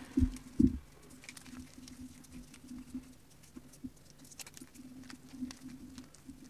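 Reformed gym chalk crushed between fingers: two heavy crunches about half a second apart at the start, then a run of small crackles as pieces crumble and fall onto the chalk powder.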